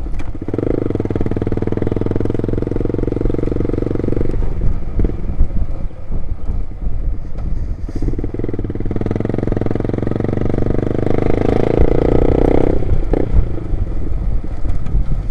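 Loud-exhaust motorcycle engine running under throttle in two stretches. In the second, the pitch rises, then the engine cuts out abruptly a few seconds before the end: the bike is stalling.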